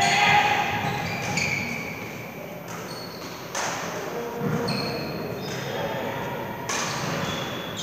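Badminton in a large sports hall: a racket hits the shuttlecock at the start, then court shoes give short high squeaks on the floor among a few sharp knocks, with voices in the background.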